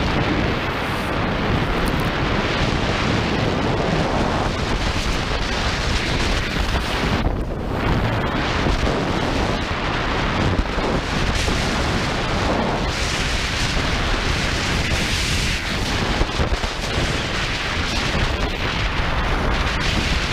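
Wind buffeting the microphone of a skier's action camera while skiing downhill, a steady heavy rumble, with the hiss of skis sliding on the snow.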